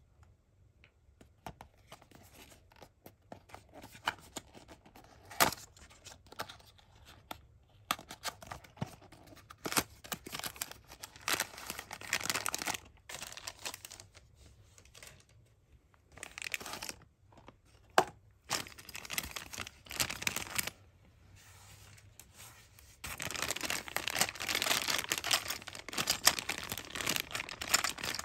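Cardboard toy box being handled and opened, with scattered scraping, rustling and clicks. Over the last few seconds comes a louder, steadier crinkling of the clear plastic bag that holds the die-cast toy truck.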